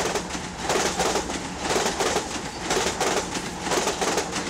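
Train wheels clacking over jointed rail as the cars pass at speed, a steady rhythm of paired clacks over a rolling rumble.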